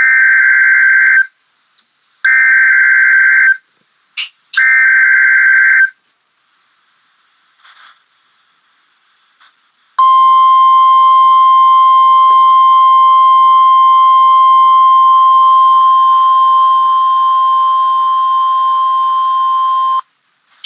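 Emergency Alert System activation on NOAA Weather Radio, encoding a Special Marine Warning. It opens with three buzzy digital SAME header bursts of about a second and a half each. After a pause of about four seconds comes the steady single 1050 Hz weather-radio warning tone, held for about ten seconds.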